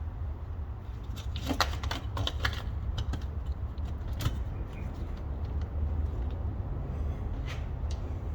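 Hand tools clinking and clicking against metal bolts while the drive shaft coupler is unbolted, a few sharp clinks in a cluster early, then single ones about four seconds in and near the end, over a steady low hum.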